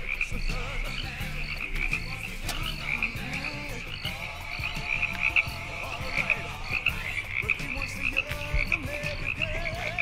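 A chorus of frogs croaking steadily and continuously, with a low hum underneath.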